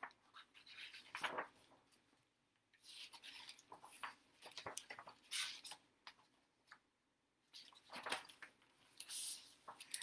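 Faint paper rustling and scraping in short irregular bursts: a picture book's pages being handled and turned.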